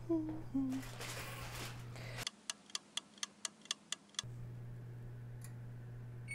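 A short whoosh, then a wind-up kitchen timer sound effect ticking about four times a second for two seconds.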